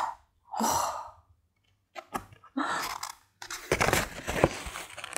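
Soft pastel stick rubbing and scratching across drawing paper in short strokes, starting about halfway through, after a brief soft hiss.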